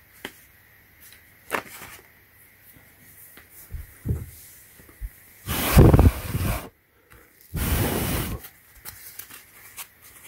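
Handling noise as a plastic blister-packed glue tube and a rubber slide sandal are moved about on carpet: a few light clicks, then two loud rustling scrapes of about a second each, a little past halfway, with a short silent gap between them.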